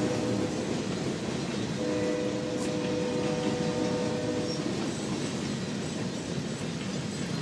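BNSF diesel locomotive horn sounding a chord: one blast ends about half a second in and a longer one runs from about two seconds to four and a half seconds, over the steady rumble of the passing train.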